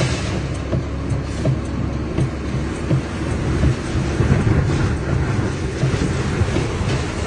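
Tornado winds blowing hard: a loud, steady low rumble with irregular gusts buffeting the microphone.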